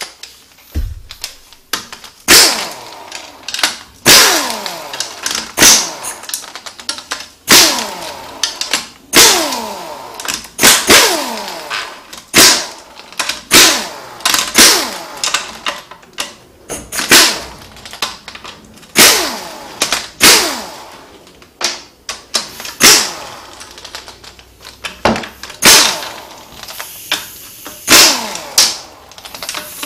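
Pneumatic impact wrench rattling in short bursts, one every second or two, each followed by a falling whine as the air motor spins down. It is running out the 10 mm bolts of an automatic transmission's oil pan.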